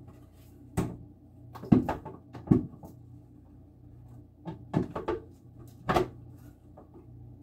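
Sharp knocks and clunks of hard plastic juicer parts being handled and fitted together, about eight in irregular groups, over a low steady hum.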